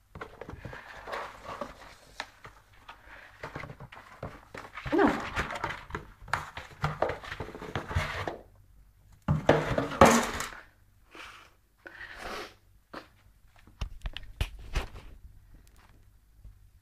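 Cardboard box scraping and rustling on a wooden floor as a cat wriggles and pushes its body into it. A few louder pitched vocal sounds come about five and ten seconds in.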